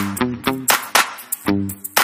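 Electronic background music with a steady beat and short pitched notes.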